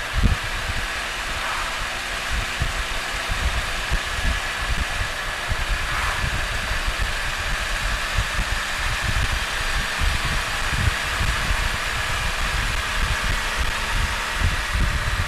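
Can-Am Spyder three-wheeled motorcycle running steadily at cruising speed, heard from the rider's seat with wind buffeting the microphone in irregular low gusts.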